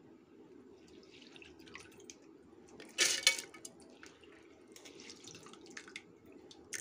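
Soaked rice and lentils, wet from their soaking water, tipped into an empty steel mixer-grinder jar: a short wet pour and splash about three seconds in, with fainter trickling and drips around it.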